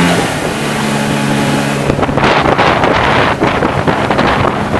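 1990 Evinrude 25 HP two-cylinder two-stroke outboard running steadily at cruising throttle, pushing the boat along the water. About two seconds in, wind buffeting on the microphone grows louder over the engine.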